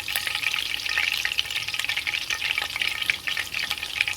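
Hot cooking oil sizzling and crackling steadily in a pot, with small pieces of onion and hot pepper frying in it to flavour the oil.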